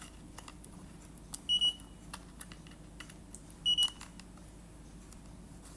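LiPo battery checker beeping: two short, high double beeps about two seconds apart, with a few faint clicks around them.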